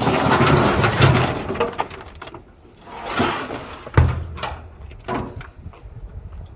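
A moped being manhandled and loaded as scrap: scraping and clattering, with a sharp heavy thump about four seconds in and smaller knocks after it.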